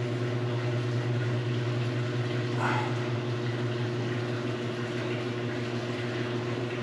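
Steady low mechanical hum of running boiler-room machinery, even and unchanging throughout.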